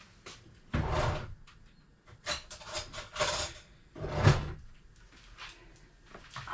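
Several short knocks and scrapes of a butter dish and knife being handled as butter is readied for spreading on bread.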